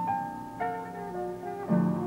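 Instrumental background music: a slow melody of held notes over sustained low bass notes, changing pitch about twice a second.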